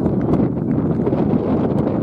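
Wind buffeting the microphone: a loud, gusting rumble of noise.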